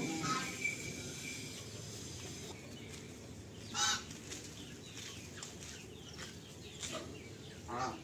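Penned poultry calling: chickens clucking and domestic geese honking. One loud harsh call comes about four seconds in and two more come near the end, over a faint, constant high twittering.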